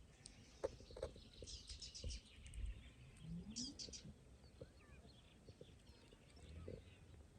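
Faint bird chirps, in quick runs of short high notes about one and a half seconds in and again near the middle, with a few soft knocks and rustles.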